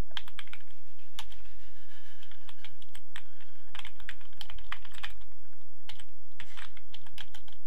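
Computer keyboard being typed on: quick, irregular runs of keystrokes with short pauses between them, over a steady low hum.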